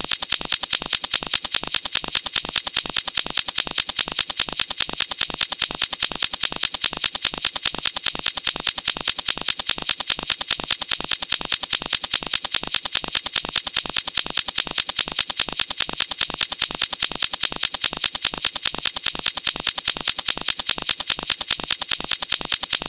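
A fidget toy clicking rapidly: a fast, even stream of sharp, high-pitched clicks with no pause or change.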